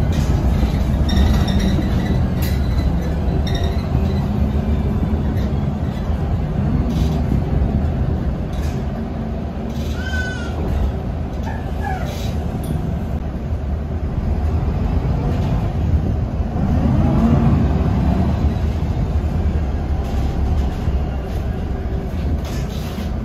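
Cabin sound inside a moving MAN NG363F articulated diesel bus: steady low engine and road rumble with scattered light rattles and clicks from the interior. The engine note swells and rises about two-thirds of the way through.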